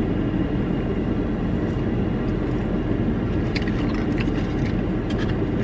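Steady low hum of a car running, heard from inside the cabin. A few light clicks and crinkles of food packaging come in the second half.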